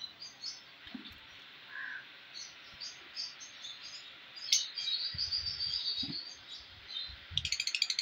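Lovebirds chirping and chattering in an aviary, in many short high calls, with a fast rattling run of ticks near the end and a few soft low knocks.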